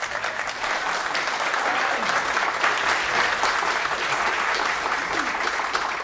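A room of people applauding with steady clapping, a few voices mixed in, easing off at the very end.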